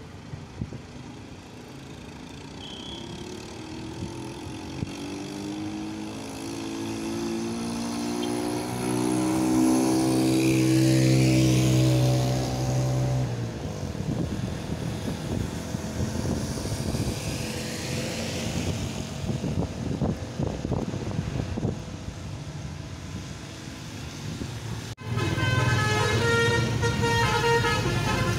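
Bus 'basuri' telolet musical horn playing a run of notes that grows louder and then cuts off abruptly, followed by bus engine and road noise. Another multi-note horn tune starts suddenly near the end.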